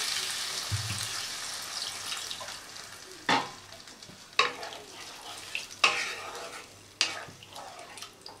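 Water poured into a hot kadai of fried masala, potatoes and pointed gourd, hissing at first and dying away over the first two or three seconds; then a wooden spatula stirring the curry, knocking against the pan four times.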